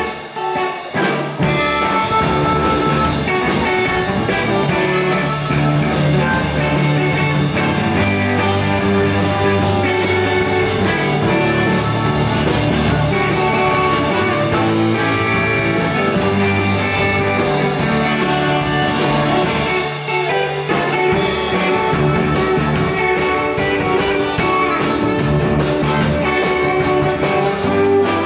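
Live electric blues band playing: two electric guitars, drum kit, upright bass and amplified harmonica. The band drops out briefly about a second in, and there is a short break about 20 seconds in.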